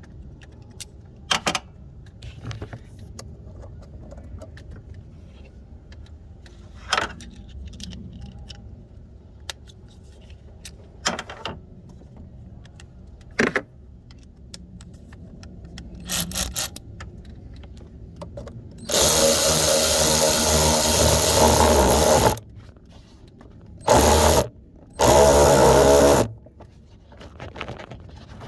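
A few sharp knocks and clinks of tools on metal, then a power drill running in three bursts: one of about three seconds, then a short one and a slightly longer one.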